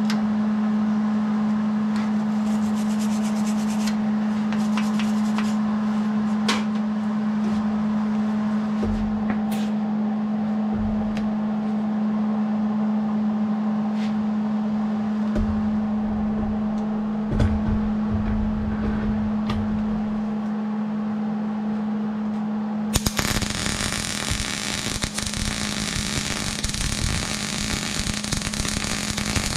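A steady low hum with scattered clanks and knocks as the steel bicycle frame is handled, then about 23 seconds in an electric welding arc strikes and runs with a continuous crackling sizzle as a repair weld is laid on the frame.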